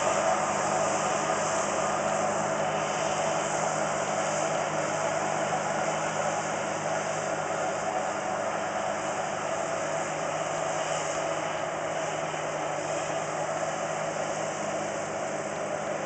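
New Holland CS6050 combine harvester running steadily at work, a continuous mechanical whir over an engine hum that eases slightly in level.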